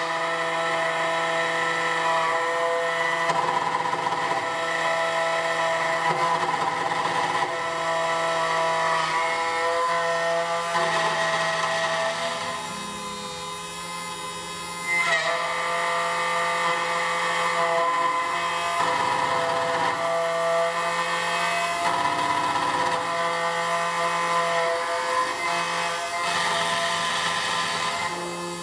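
SEC-E9 key machine's spindle motor running as its cutter mills a Honda HON66 key blade. The sound eases off for about two seconds near the middle, then runs again and stops just before the end.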